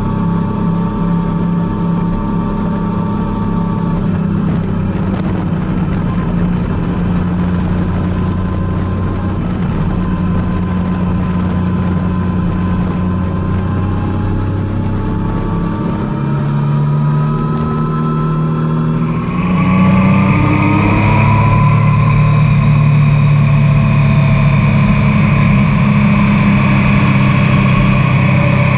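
Triumph Tiger 800's three-cylinder engine running under way, heard from on board. The revs climb in rising sweeps after about halfway, and the engine gets louder about two-thirds of the way in.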